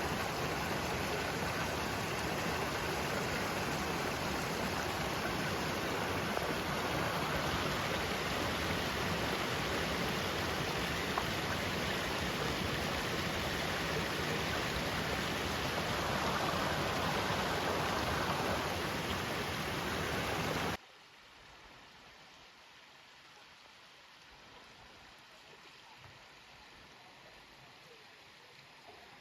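Steady rushing water, like a stream or small waterfall, that cuts off abruptly about two-thirds of the way through, leaving only a faint outdoor background.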